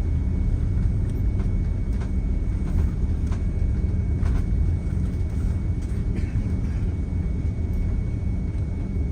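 Steady low rumble of an Airbus A330-300 heard from inside the passenger cabin, with a few light knocks along the way.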